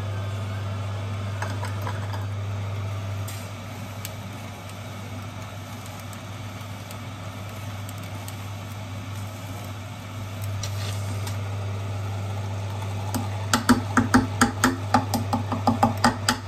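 Electric juice extractor's motor humming steadily as frozen grapes are pressed through its blank sorbet screen. Near the end comes a quick run of sharp knocks and cracks, several a second, from the frozen grapes in the machine.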